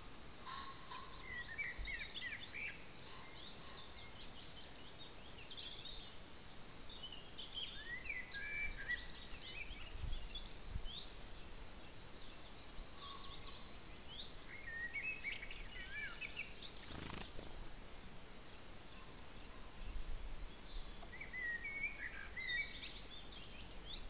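Wild songbirds singing in several bouts of quick, high, varied chirping phrases separated by short pauses, over a faint steady hiss. A single soft tap sounds about seventeen seconds in.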